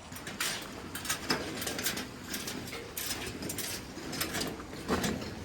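Footsteps crunching in packed snow on a winter trail, a steady walking rhythm of roughly two steps a second.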